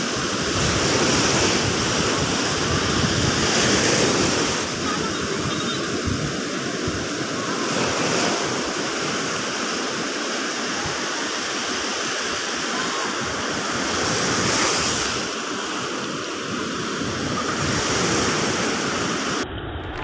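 Ocean surf breaking and washing in: a steady rush of water that swells louder every few seconds as waves break.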